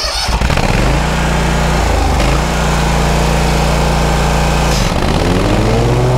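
Toro Grandstand 52 stand-on mower's engine running at full throttle as the blades are engaged. The engine pitch dips briefly and recovers about two seconds in and again near five seconds. It runs smoothly without labouring, as expected when blades are engaged at full throttle rather than half throttle.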